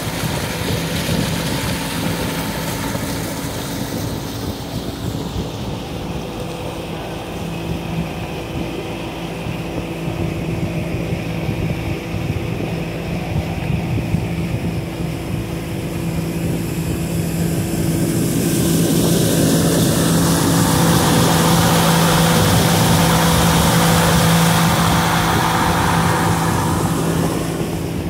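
A fishing boat's motor running at a steady pitch as the boat cruises, with wind and water rushing past. The rush grows louder for several seconds in the last third.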